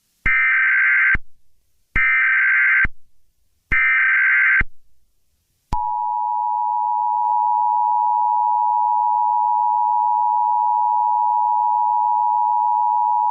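Emergency Alert System tones: three short bursts of SAME digital header data, each about a second long with brief gaps between, then the steady two-tone EAS attention signal starting about six seconds in. Together they mark the start of an emergency alert.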